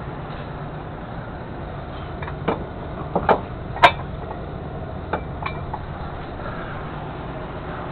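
About six sharp metal clinks and clanks, the loudest near the middle, from hands working among the chain and fittings at a semi tractor's rear axle. Under them runs the steady low hum of an idling truck engine.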